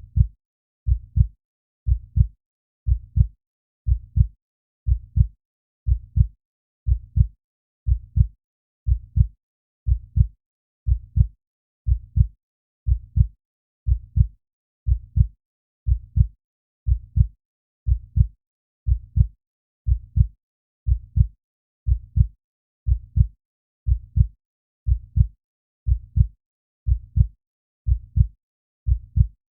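Calm, steady heartbeat: a low lub-dub double thump about once a second, around 60 beats a minute, evenly repeated.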